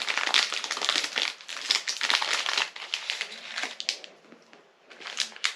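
Packaging being handled: wrappers crinkling and rustling with many small crackles, falling almost quiet for a moment about four seconds in before starting again.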